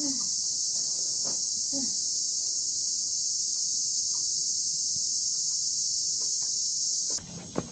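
Cicada chorus: a loud, steady, high-pitched shrill buzz that cuts off suddenly near the end.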